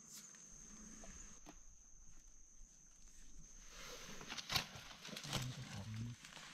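Faint rustling and crackling of dry leaf litter as a gloved hand digs out and handles a mushroom, with a few sharper clicks in the second half. A faint, steady high-pitched tone runs underneath.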